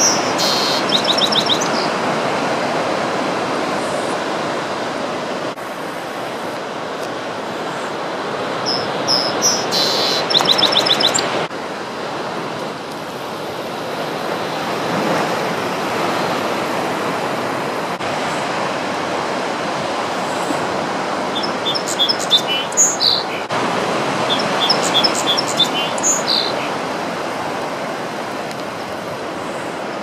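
A song sparrow sings in three bouts of rapid high trilled notes: at the start, about ten seconds in, and a longer run of phrases from about 21 to 26 seconds. Under it runs a steady, loud rushing noise.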